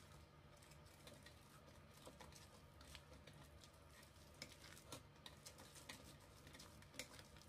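Faint clicks and scrapes of a utensil stirring thick chocolate cake batter by hand in a ceramic bowl, over a low steady hum.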